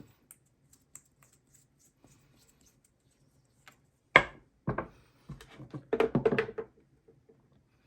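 Corrosion being scraped off a metal screw in a battery contact: faint small ticks, then one sharp scrape about four seconds in, followed by a quick run of scratching strokes near the end.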